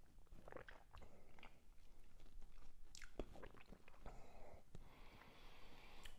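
Faint wet mouth sounds of a person swishing and chewing a sip of whisky: small lip smacks and tongue clicks, then a breath out about four seconds in.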